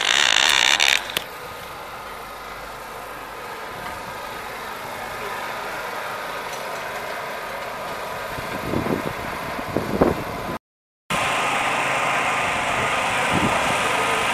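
Rally service-park background noise: a steady hum of engines and machinery, with a couple of low rumbles about nine and ten seconds in. It drops out for half a second, then returns as a louder, steady machine hum with a faint whine.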